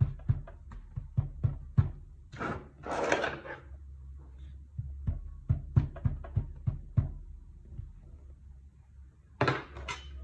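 A stainless-steel wire mesh basket pressed again and again into kinetic sand on a tabletop: a run of quick light knocks, a crumbling swish of sand about two seconds in, a few more knocks, and another short swish near the end.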